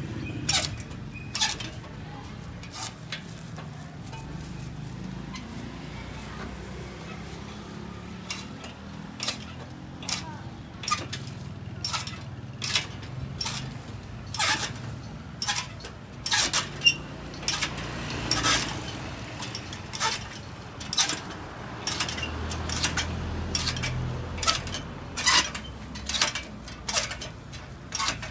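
Hand-lever sugarcane cutter chopping peeled sugarcane into chunks: repeated sharp chops of the steel blade through the cane, in irregular runs that come faster in the second half.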